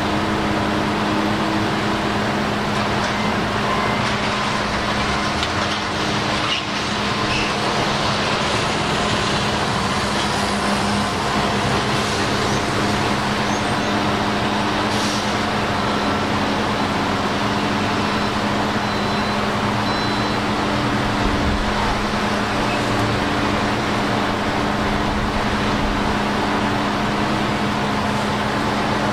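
Engine of railroad maintenance-of-way work equipment running steadily, a continuous mechanical drone with a low hum.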